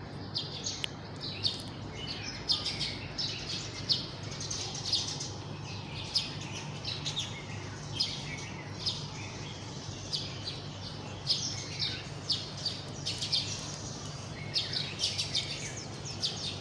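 Small birds chirping: a steady stream of short, high-pitched chirps from several birds, overlapping and coming several times a second.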